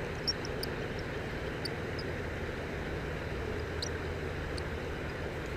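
Steady low mechanical hum, like a distant engine, with a few short, high chirps on top.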